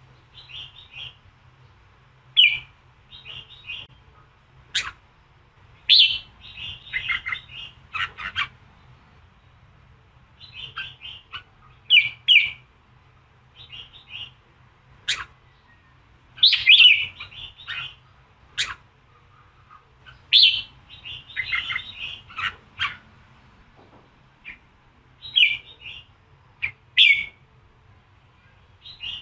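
Red-whiskered bulbul singing in the 'giọng kình' style, the fiery song used to stir up and train caged male bulbuls. It gives short, bright phrases of a few chirpy notes every second or two, with a few sharp clicks between them.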